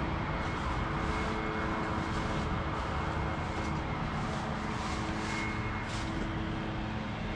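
Steady droning outdoor background noise with a constant hum running through it.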